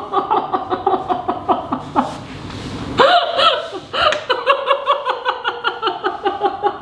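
Two women laughing hard in quick, hiccuping pulses. Around two seconds in the laughter turns breathy and quieter, then breaks out louder again about a second later.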